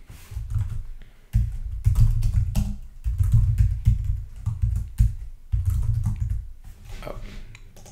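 Typing on a computer keyboard: a quick run of key clicks, each with a dull thump, broken by a short pause about a second in.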